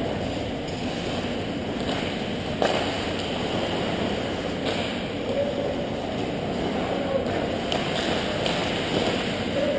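Ice hockey rink during play: a steady noisy arena hum with distant skating and stick sounds, and a sharp knock about two and a half seconds in, with lighter ones later.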